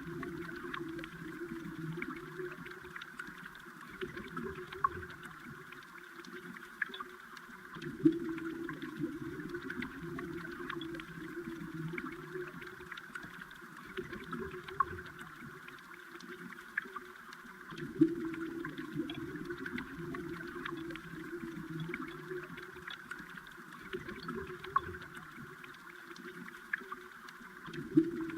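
Underwater sound of a flowing river or stream: a steady bubbling, gurgling rush sprinkled with faint clicks and ticks, swelling briefly louder about every ten seconds.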